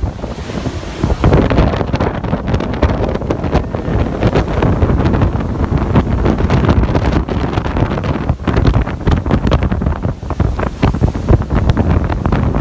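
Hurricane winds buffeting a phone's microphone: a loud, rough rush of noise that rises and falls with the gusts.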